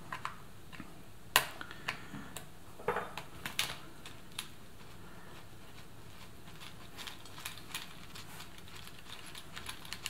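Scattered light metallic clicks and taps as a quarter-inch spanner works a small nut loose on a keyboard's controller board, the sharpest click about a second and a half in; fainter ticks follow near the end as fingers handle the nut and grounding strap.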